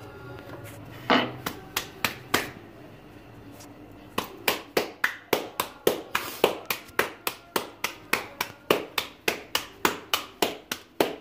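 Hands slapping a thin round of puri dough back and forth between the palms to stretch it thinner. There are a few separate slaps at first, then from about four seconds in a steady run of about three slaps a second.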